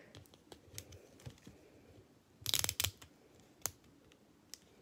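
Wrapping on a surprise ball being picked at and peeled by hand: scattered small crinkles and clicks, with a brief burst of tearing and crinkling about two and a half seconds in.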